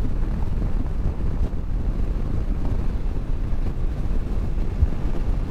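Wind buffeting the camera microphone of a motorcycle riding at road speed: a steady low rumble of wind and road noise, with no distinct engine note.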